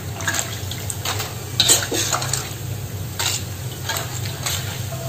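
Metal tongs clicking and scraping against a metal wok as fried peanut crackers (peyek) are lifted out of the hot oil, a scattering of sharp clinks a second or so apart.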